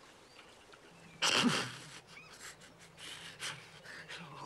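A man's breathy, wordless vocal sounds: a loud breathy burst with a falling voice about a second in, then softer breaths a couple of seconds later.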